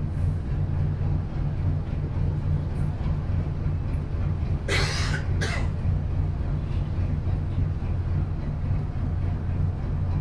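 Leyland O.680 six-cylinder diesel of a Bristol RELL6L single-deck bus idling with a steady low drone. About halfway in come two short bursts of air hiss, the second shorter than the first.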